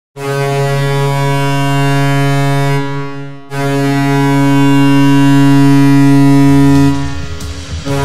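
Colorado Eagles arena goal horn: a deep, ship-style horn sounding in long steady blasts, one of about three seconds and a second of about three and a half seconds starting after a brief break. A low rumble comes in near the end as the second blast stops.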